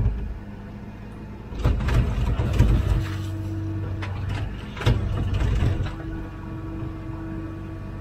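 Komatsu PC16 mini excavator's diesel engine running as the hydraulics work the arm. It swells louder twice, about two seconds in and again about five seconds in, with knocks and scrapes, and a thin steady whine in between.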